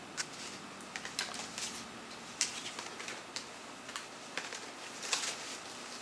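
CD packaging being handled: an irregular string of light clicks and rustles from card sleeves and cases being shifted about, the loudest a little over two seconds in and about five seconds in.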